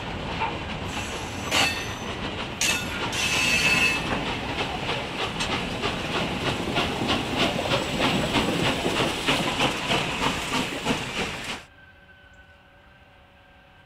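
Steam-hauled excursion train passing close by, with a few bursts of hissing in the first seconds, then a fast, even, rhythmic clatter. About eleven and a half seconds in the train sound cuts off suddenly, leaving a much quieter stretch with faint steady tones.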